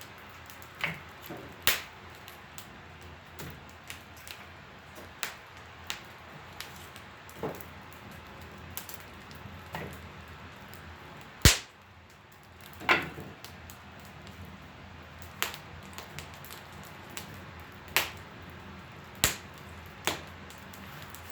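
Wood fire of juniper and mulberry in a wood stove, crackling with irregular sharp pops a second or two apart. The loudest pop comes about eleven seconds in.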